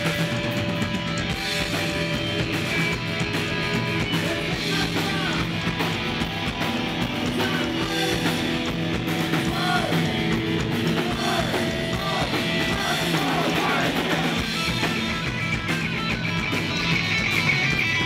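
Live rock band playing at full volume: amplified electric guitars over bass guitar and drums.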